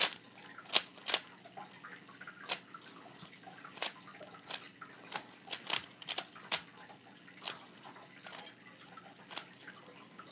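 Plastic 3x3 speed cube being turned by hand, its layers snapping into place as a run of sharp, irregular clicks, some in quick pairs. The owner takes the cube for a MoYu MeiLong.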